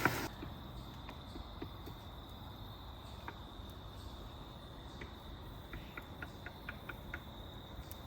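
Crickets trilling in a steady, high, even chorus, with a few faint short ticks over it.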